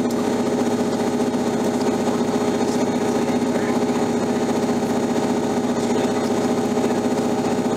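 Diesel multiple unit's underfloor engine running steadily, heard from inside the passenger carriage as the train travels along.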